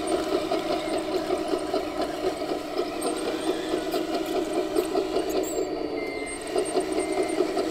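Simulated diesel engine running steadily from an RC construction model's sound module, with a fast, even rattle.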